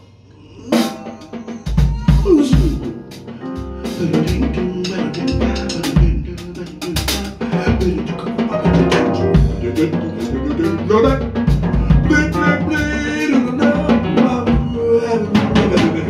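Live jazz combo playing, the drum kit to the fore with snare and rimshot strokes and bass drum hits over electric bass and piano. The band comes back in after a brief lull at the start.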